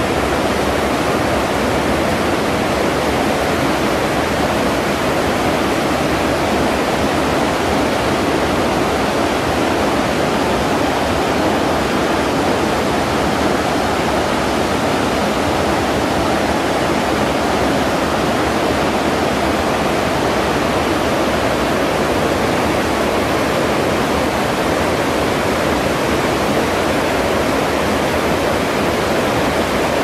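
Fast mountain river rushing over rocks and rapids: a loud, steady wash of water that does not change.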